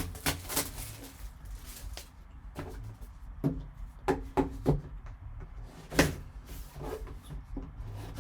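Cardboard trading-card box being handled and opened: a string of irregular light taps, clicks and scrapes of cardboard and plastic wrap.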